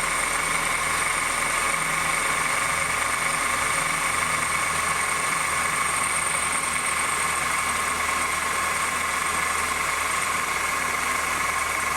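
2008 Honda New Civic engine idling with a steady, high-pitched, bearing-like whine from the accessory belt drive. The whine persists despite two new belt tensioners, and the mechanic traces it by stethoscope to the power steering pump.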